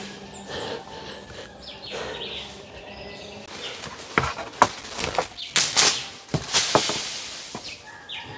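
Branches and leaves of a breadfruit tree rustling and cracking as a climber works through it picking fruit: a run of sharp snaps and crackling leaf rustle from about halfway through. Faint bird chirps come before it.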